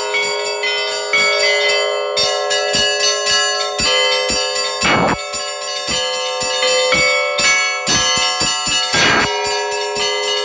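Russian Orthodox church bells ringing a festal peal (trezvon): small bells struck in a quick, repeating pattern over the steady ring of larger bells. Two heavier strikes sound, about halfway through and near the end.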